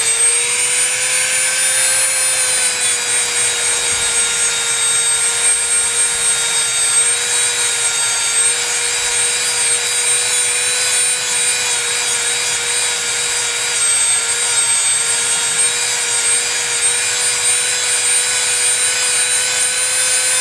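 Dremel rotary tool running with a steady high whine as its bit grinds paint off a composition doll arm; the pitch wavers a little as the pressure on the bit changes.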